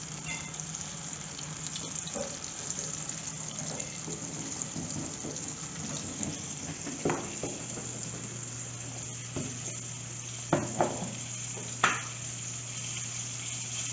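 Flour-coated chicken pieces frying in a pot of hot oil, giving a steady sizzle, with a few brief clatters in the second half.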